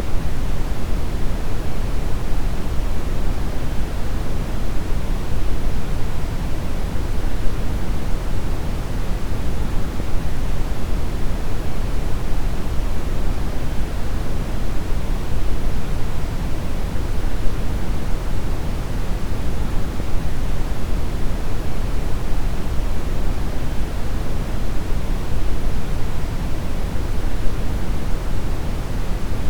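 Synthetic brown noise: a steady, deep rushing hiss that stays even throughout, with its weight in the low end.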